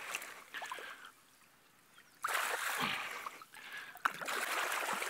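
Shallow muddy water splashing as bare hands grab at catfish thrashing at the surface: splashes in the first second, a short lull, then louder splashing from about two seconds in, with one sharp slap near the end.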